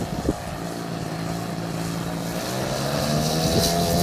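Engine and propeller of a large-scale RC Cap 232 aerobatic plane droning steadily, its pitch and loudness slowly rising over the second half.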